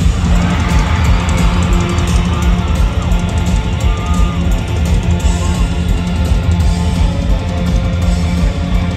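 Rock band playing loud and hard live: distorted electric guitars over bass and drums, heard from the crowd with a heavy, booming low end.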